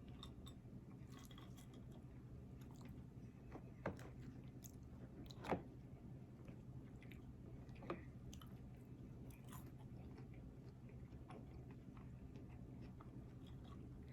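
Close-up chewing and biting of food, soft and wet, with three sharper clicks about four, five and a half, and eight seconds in, over a steady low hum.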